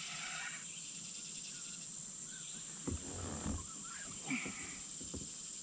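Steady chorus of insects buzzing in the riverside woods, with a few brief low sounds around three and four seconds in.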